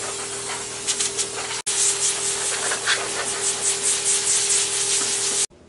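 Power sander running flat on a steel car door panel: a loud rasping hiss over a steady motor whine. It breaks off for an instant about a second and a half in, then stops abruptly just before the end.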